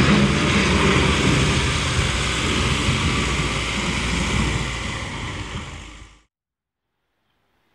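JCB wheel loader running under a steady rushing noise with a low rumble as it drives away over the hail-strewn road. The sound fades and cuts off about six seconds in.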